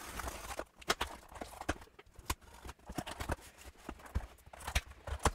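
A box cutter slitting the packing tape along a cardboard shipping box, then the cardboard being pried open: a run of irregular clicks, scrapes and cardboard knocks, the sharpest near the end.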